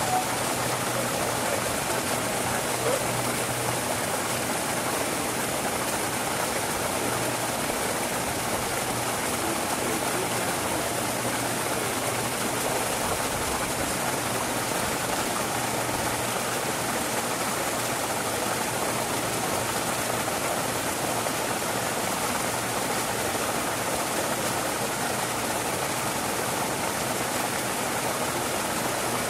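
Steady rushing of running water, even throughout, with a faint low hum beneath it.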